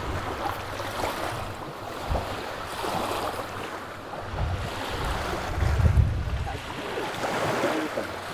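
Wind buffeting the microphone over a steady wash of river water lapping at the bank, with a stronger gust about six seconds in.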